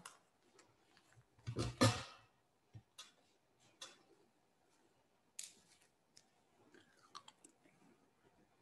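Quiet handling noises: scattered soft clicks and crunches, with a louder rustling burst about one and a half seconds in.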